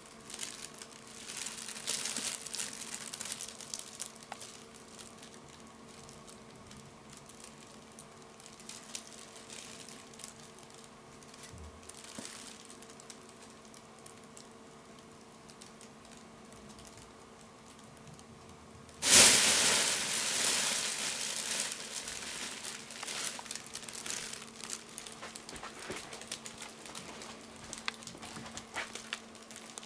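Thin nylon fabric of a pop-up cat play tunnel crinkling and rustling as a cat moves and paws inside it, with a sudden loud rustle about two-thirds through that dies down over a few seconds. A faint steady hum lies underneath.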